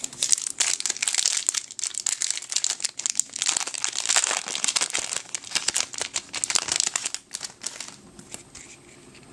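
Foil wrapper of a Yu-Gi-Oh! booster pack crinkling and being torn open by hand: a dense run of sharp crackles that dies down about eight seconds in.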